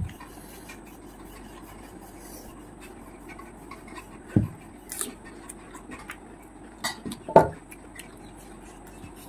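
Scattered handling sounds of panipuri being prepared at a table: a few soft thumps and crisp taps of puris, fingers and glass bowls, the loudest about seven seconds in.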